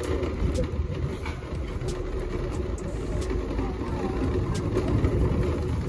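Metal shopping cart rolling over asphalt: a steady rumble from its wheels, with light rattles scattered through it.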